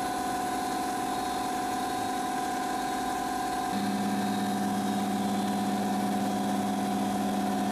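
Steady hum of running processing machinery: an even whining tone throughout, with a lower hum joining about four seconds in.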